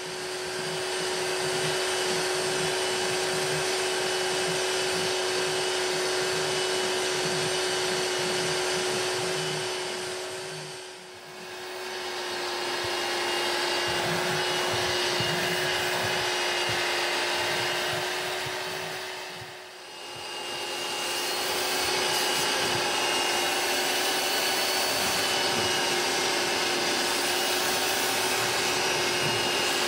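Rug Doctor carpet cleaner's vacuum motor running, sucking through the upholstery hand tool as it is worked over car carpet. It is a steady, even whine over a hiss of suction, and it dips briefly twice.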